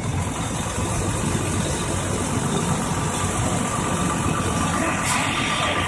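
Fire engine's motor running steadily at close range, a low even rumble, with the truck working its pump to supply the hose lines.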